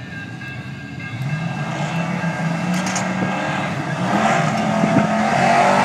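Ford big-block V8 in a 1996 Mustang GT running at full throttle down a drag strip, growing steadily louder as the car comes closer.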